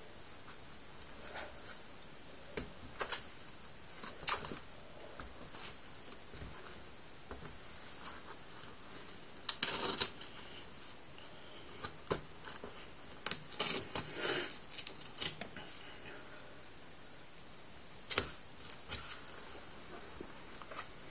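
Intermittent handling noise: scattered clicks and short rustles, with a louder burst of rustling about ten seconds in and another run a few seconds later.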